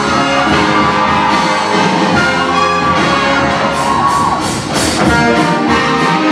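Live show-choir band playing an instrumental dance break, brass section prominent, with a steady beat picking up in the second half.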